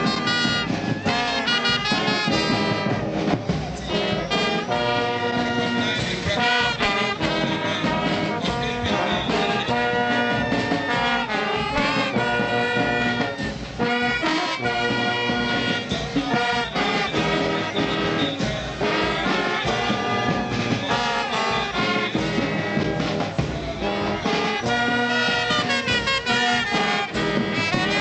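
Brass band music playing steadily, with horns carrying the tune.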